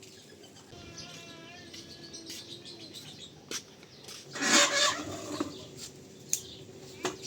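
Chickens calling: a long wavering call in the first few seconds, then a loud harsh squawk near the middle, with a few scattered clicks.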